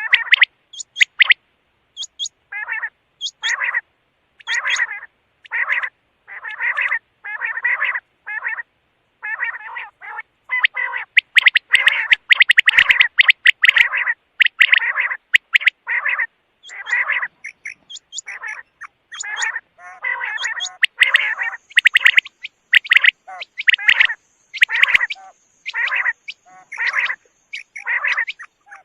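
Quail calling over and over: short raspy calls about one a second, crowding closer together in the middle stretch.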